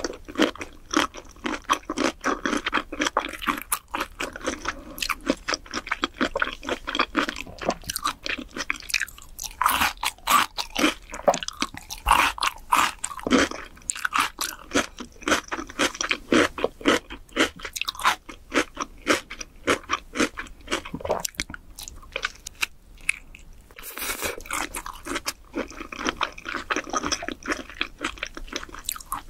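Close-miked chewing of raw shrimp: a steady run of fast, dense mouth clicks, with a brief lull a few seconds before the end.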